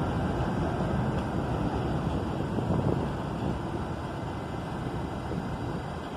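NYC subway trains on an elevated line: a steady rumble that eases off a little about three seconds in.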